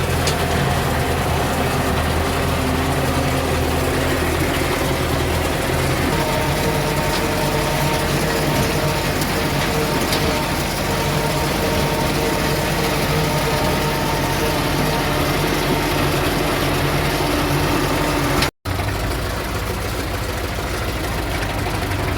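MTZ-50 tractor's four-cylinder D-50 diesel running steadily on its first test run after repair. Its note changes about six seconds in, and the sound cuts out for an instant near the end.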